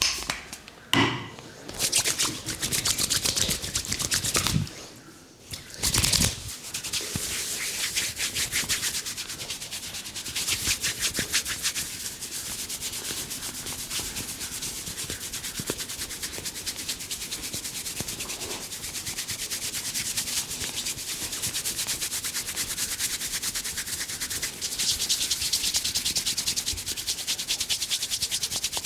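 Brisk massage rubbing over a person's head and hair: a continuous run of quick friction strokes with a hissing texture. A few louder knocks or pats come in the first six seconds.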